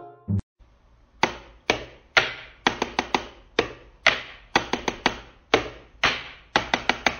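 A wall rocker light switch clicked on and off over and over by a cat's paw. The clicks start about a second in and come in uneven runs, singly and in quick bursts of three or four.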